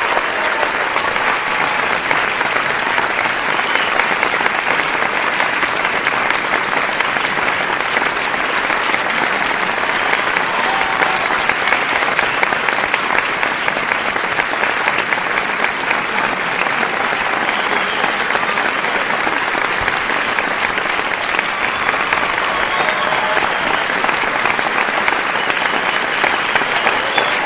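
Sustained applause from many people clapping, a dense, steady patter of hand claps that neither builds nor fades.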